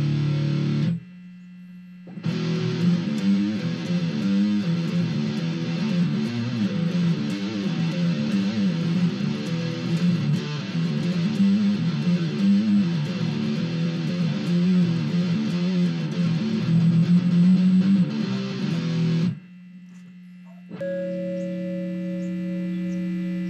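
Les Paul-style electric guitar played through a Twinote Boogie Distortion pedal into a Marshall mini amp. A distorted chord rings and stops, then a long riff of changing distorted notes, a short break with a steady low hum, and a held chord ringing near the end.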